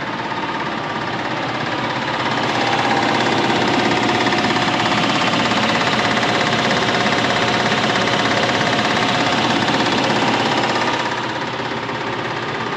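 RV engine running with a loud, rapid knocking, getting louder about two seconds in and easing back near the end. The knock is still there even though the camshaft, lifters and rocker arms were just replaced.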